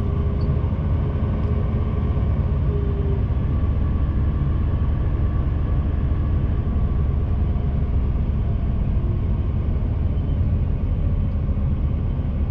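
Class 2 HGV rigid truck's diesel engine running steadily, a constant low rumble with no change in pitch or level.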